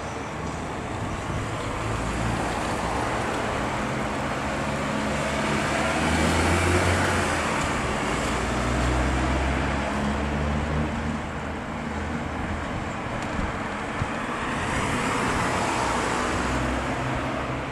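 Road traffic: motor vehicles passing by one after another, with engine hum and tyre noise swelling about six seconds in and again near the end.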